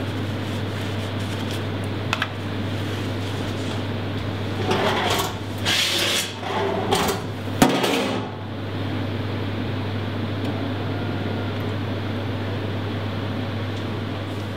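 A spatula scraping across the stainless-steel base of a tilting pan coated in cooked milk pudding, in three or four strokes in the middle, ending in a sharp knock. A steady low mechanical hum runs underneath.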